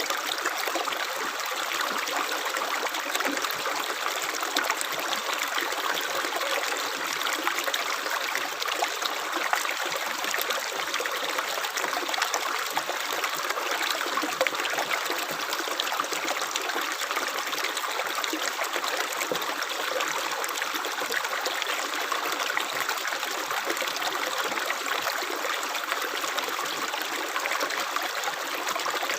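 Running water: a stream or brook flowing and trickling over stones, a steady splashing burble with no low rumble.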